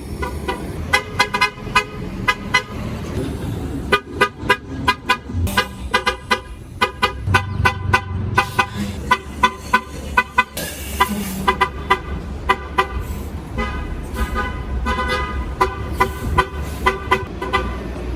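MTA transit bus horn tooted in many short, quick beeps, several a second in places, over a low engine and traffic rumble.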